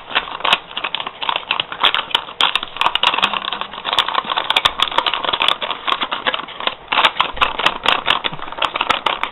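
Paper cookie-mix pouch crinkling and crackling as the mix and water are stirred inside it with a spoon: a dense, irregular run of crinkles and sharp clicks.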